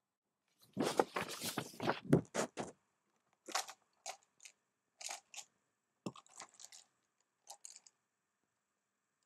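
Copic markers and paper being handled close to the microphone: a burst of crunchy rustling lasting about two seconds, then a string of separate clicks and taps, one with a dull thump.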